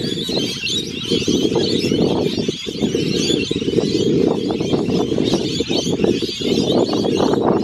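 A flock of parrots chirping continuously, over strong wind buffeting the microphone with a dense low rumble.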